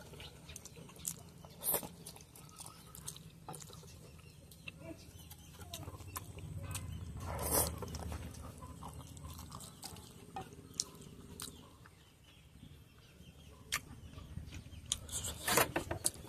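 A man slurping and chewing instant ramen noodles, with chopsticks clicking against the plate; one longer slurp comes about halfway through and a run of clicks near the end. Chickens cluck faintly in the background.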